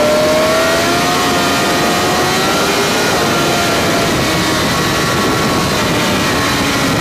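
Sportbike engine pulling hard at high revs while accelerating, with heavy wind rush over the onboard microphone; the engine note rises over about the first second.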